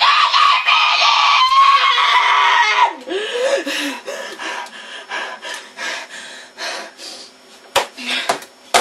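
A boy screaming in frustration at full voice for about three seconds, the pitch sliding down at the end. Then a rapid, irregular clatter of taps and knocks on a computer keyboard, with a few harder thumps near the end.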